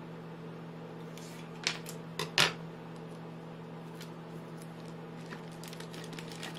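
Scissors set down on a wooden tabletop: a couple of light clicks, then a louder knock about two and a half seconds in, over a steady low hum.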